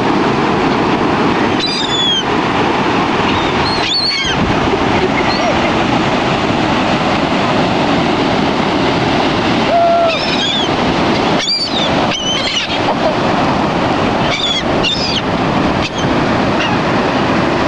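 Gulls calling with short, high cries scattered throughout, over the steady wash of ocean surf.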